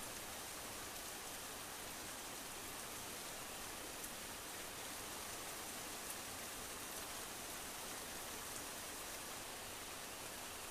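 Steady faint hiss with a few soft ticks.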